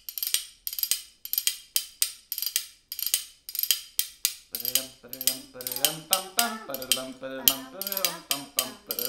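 A pair of spoons played as a percussion instrument, clacking a steady, galloping rhythm of about three to four strikes a second. From about halfway a voice joins in with a wordless tune over the clacks.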